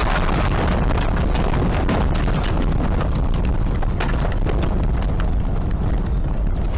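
Tornado wind buffeting a microphone: a loud, continuous low rumble and rush, broken by many sharp cracks and knocks. The hiss on top eases a little after about a second.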